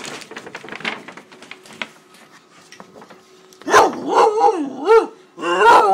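Great Dane puppy barking at a paper bag: about four drawn-out barks that waver in pitch, starting about halfway in. Before them, crinkling and scuffling as the puppy goes at the bag.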